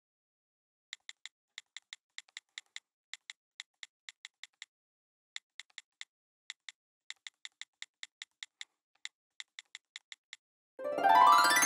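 Computer-keyboard typing sound effect: a run of light, identical clicks in uneven groups of a few per second. Near the end comes a louder transition sound effect whose several tones rise together.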